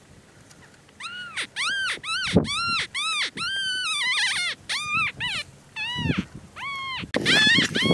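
A rapid series of coyote yips, each short call arching up and falling in pitch, starting about a second in, with calls overlapping in the middle and a louder burst near the end.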